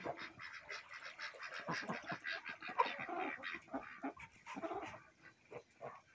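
A flock of domestic geese and ducks calling: a busy run of short honks and quacks that thins out about five seconds in.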